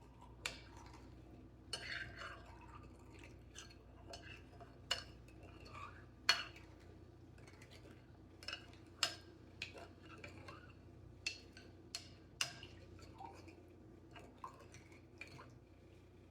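A utensil stirring a liquid sauce in a bowl, tapping and clinking against the sides at irregular intervals as the cornstarch and sugar are mixed in.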